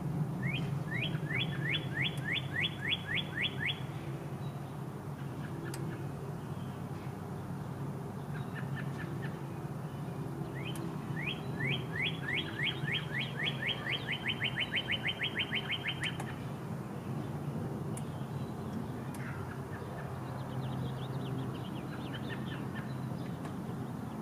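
A songbird singing two long trills of quickly repeated rising whistled notes, about four or five a second, one at the start and one about eleven seconds in, with fainter bird calls between them. A steady low hum runs underneath.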